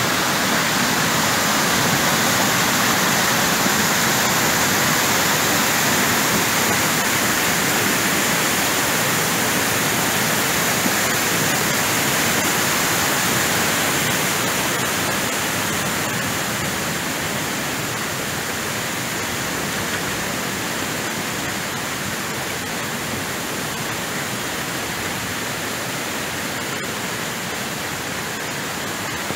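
Muddy rainwater runoff rushing across a road and pouring over its edge down an eroded bank: a steady, loud rush that eases somewhat about halfway through.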